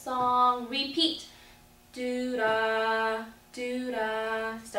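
A woman singing a short melody unaccompanied, in three brief phrases of held notes stepping up and down in pitch.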